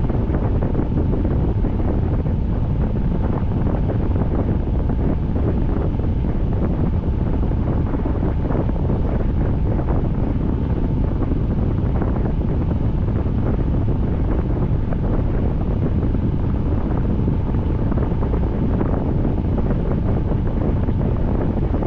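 Wind buffeting the microphone in a steady low rumble, with the hiss and faint patter of rain.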